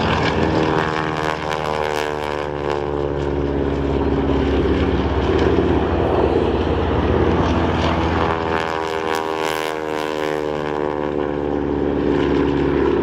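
Propeller airplanes flying low past: a steady engine-and-propeller sound whose pitch slides down as each one goes by, once about a second in and again after about eight seconds.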